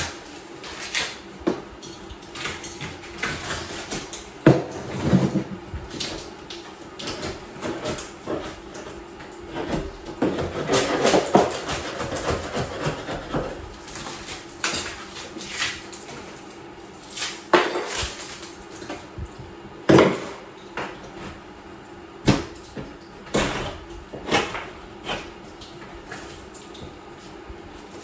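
Irregular sharp knocks and clinks of hard objects, typical of ceramic tile pieces and hand tools being handled while tile is taken out of a shower wall. There is a denser, rougher stretch about ten to thirteen seconds in.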